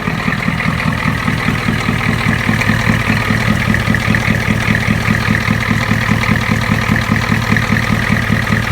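1985 Ford F-350 engine idling through true dual exhausts with no mufflers, a steady, even, fast pulsing beat. It is warming up after sitting a while, and the owner is listening for a possible knock.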